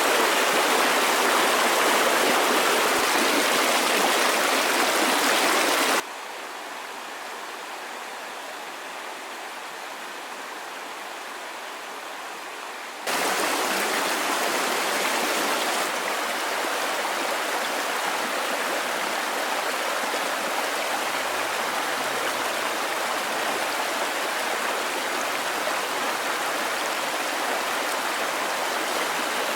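Steady rush of flowing water, an even hiss without distinct splashes. It drops abruptly much quieter about six seconds in and returns just as abruptly about seven seconds later.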